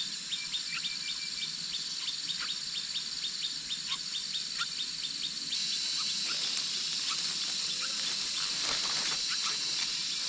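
Steady high-pitched insect drone, likely crickets, with a small bird's quick falling chirps, about four a second, through the first half. The drone grows louder about halfway through.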